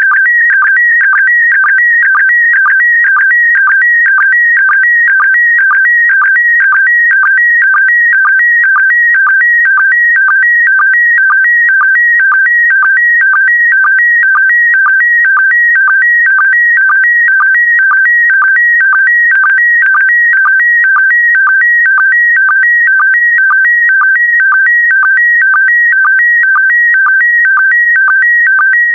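Slow-scan TV image signal in PD120 mode: a loud, warbling electronic tone that keeps shifting pitch as it carries the picture, with a pattern that repeats evenly about twice a second as each pair of image lines is sent.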